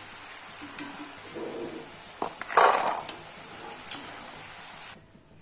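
Hot oil sizzling steadily in an iron kadai as flour-coated chickpeas deep-fry, while a steel perforated skimmer clinks against the pan and plate, with the loudest metal clatter about two and a half seconds in. The sizzle cuts off near the end.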